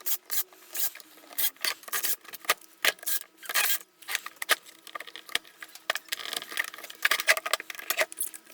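Irregular small clicks and scrapes of a screwdriver and the plastic housing of a cordless circular saw being handled as its housing screws are tightened.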